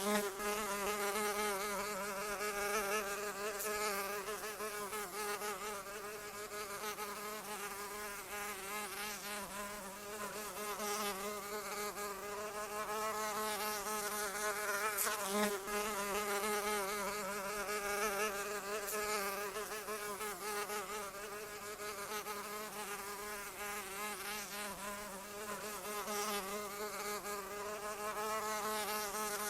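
Flying insect's wings buzzing in one continuous drone. The pitch wavers slightly and the loudness swells and fades gently as it flies.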